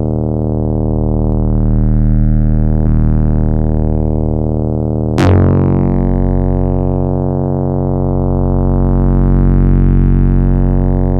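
Korg EX-800 synthesizer playing a sustained low bass drone whose overtones slowly swell and waver. About five seconds in a new bass sound starts with a bright, sharp attack and then holds steady.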